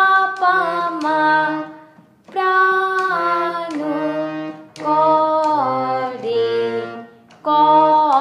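Harmonium playing a slow melodic phrase note by note, each reed tone held steady before stepping to the next, with two short breaks between phrases, about two seconds in and again near the end.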